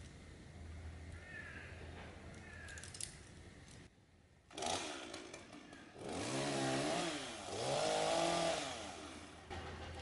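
Top-handle two-stroke chainsaw running and revved up twice, its pitch rising and falling with each rev. It comes in about halfway through, after a quiet stretch.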